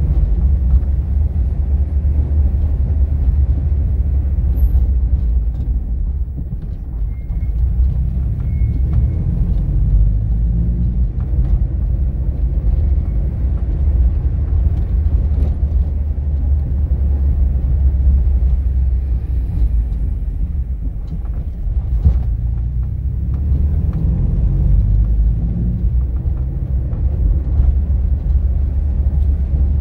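Steady low rumble of a car driving along a city road: engine and tyre noise, with a single knock about twenty-two seconds in.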